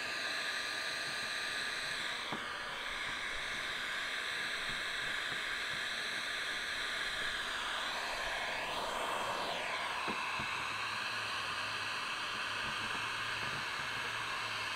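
Handheld electric heat gun blowing steadily, heating vinyl wrap film so it can be tucked around window trim; its hiss wavers in tone as the gun is moved about.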